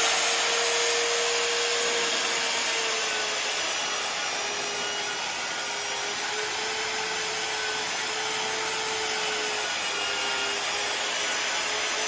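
Magnetic drill press running steadily as it bores into a steel truck frame rail. Its motor pitch sags a little under load about three seconds in.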